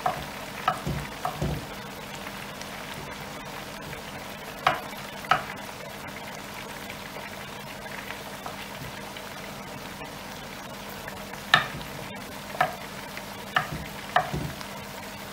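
Potato chips deep-frying in a basket of hot oil in a deep fat fryer: a steady sizzle of bubbling oil, with sharp pops and crackles at uneven intervals.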